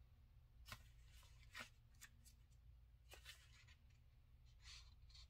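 Near silence, broken by a handful of faint soft taps and rustles of paper cards being handled.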